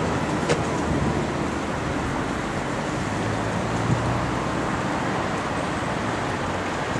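Steady road traffic: cars and other motor vehicles running on the road, with a low engine hum under the tyre noise.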